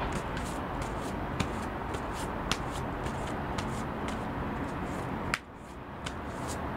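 A deck of oracle cards being shuffled by hand: soft, irregular flicks and snaps of card against card, with a couple of sharper clicks, over steady background noise.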